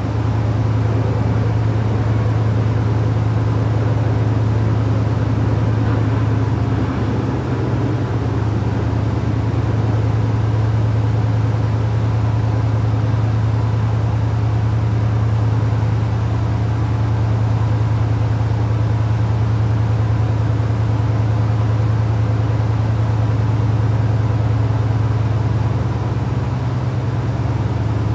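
Classic Cadillac V8 engines idling steadily, a loud even low hum.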